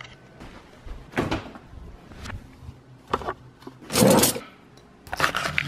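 Knocks and handling sounds, with the loudest about four seconds in: a kitchen cutlery drawer being opened and metal spoons and forks rattling in their tray as one is taken out.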